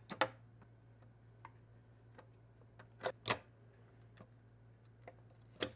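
Sharp snaps and ticks of a clear polycarbonate RC body shell being cut and picked at with a hand tool. There are a few loud snaps: one just after the start, two close together about three seconds in and one near the end, with fainter ticks between them over a faint steady hum.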